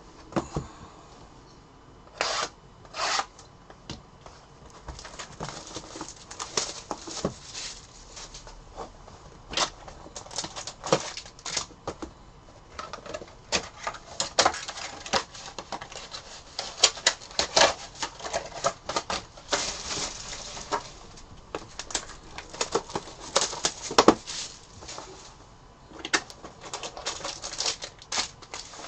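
Foil trading-card packs crinkling as they are handled and torn open, with the card box and cards being handled: an irregular run of sharp crackles, rustles and clicks.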